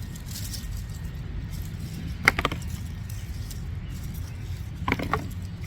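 Two short, sharp clinks or knocks with a brief ring, one about two seconds in and a quick double one near the end, over a steady low rumble.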